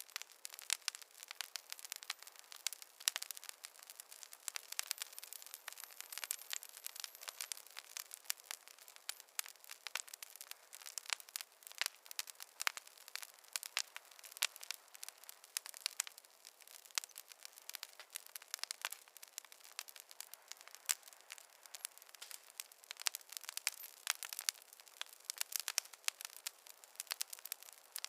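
Wood fire crackling: a dense, irregular run of small sharp pops and snaps over a soft hiss, thin with no low rumble.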